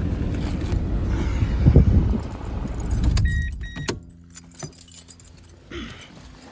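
Keys jangling with handling rustle, then two short high electronic beeps about three seconds in and a knock. After that it goes much quieter, leaving a faint steady low hum.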